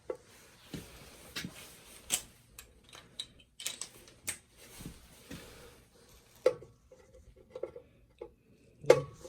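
Irregular clicks, taps and light scrapes of hand tools and small metal parts being handled while working on a boiler's switch, with one sharper knock about two seconds in and another just before the end.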